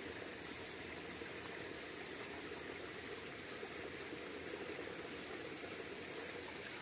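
Shallow creek water running steadily, an even low rush with no splashes standing out.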